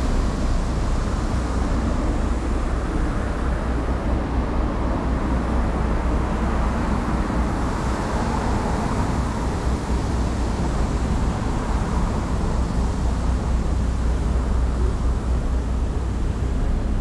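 City street traffic: cars driving along a wide road, one passing and swelling about eight to ten seconds in, over a steady low rumble.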